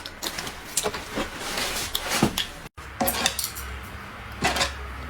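Tableware being handled: a scattered series of short knocks and clicks as bowls, containers and utensils are set down and moved on a table, with a brief dead gap about two and a half seconds in.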